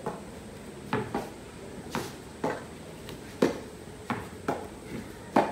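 Mini-tennis rally on a wooden deck: a string of sharp pops from rackets striking a tennis ball and the ball bouncing on the boards, coming every half second to a second, the loudest about three and a half seconds in and near the end.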